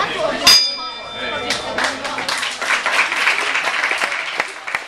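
A ring bell struck once about half a second in, ringing for about two seconds, signalling the end of the round. Spectators clapping and applauding follow.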